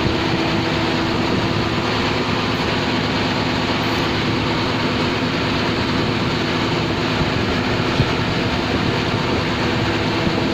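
Ferry boat's engine running steadily, under an even rushing noise that does not change.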